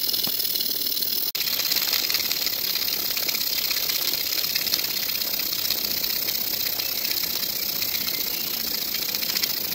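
Stuart ST oscillating model steam engine running on steam: a fast, even patter of exhaust beats over a steady steam hiss. It is ticking over gently on low boiler pressure.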